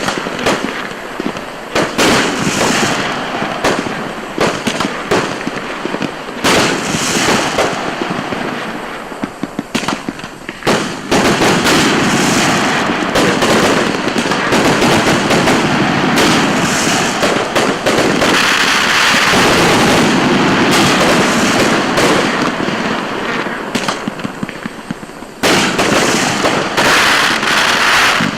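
Starget A5219 "Danger High Voltage" consumer firework going off: a dense, continuous crackling with many sharp pops. It gets louder about eleven seconds in and jumps up again near the end.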